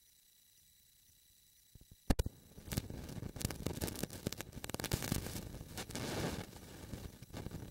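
Faint hiss, then a sharp click about two seconds in, followed by steady crackling, rustling noise on the camera's microphone.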